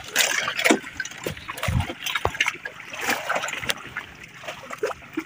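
Sea water splashing and lapping irregularly against the hull and bamboo outriggers of a small outrigger fishing boat.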